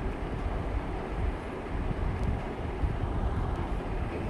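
Steady low background rumble and hiss with no distinct events.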